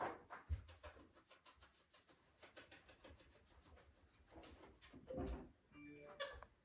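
Faint scratching and rubbing with a quick run of light ticks, a couple of soft thuds, and a brief squeak near the end.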